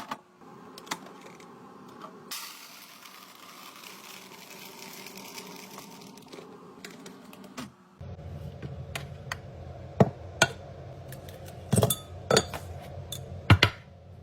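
Kitchen handling sounds: dishes and glassware clinking and being set down, with sharp knocks in the second half. A few seconds of steady hiss come before them.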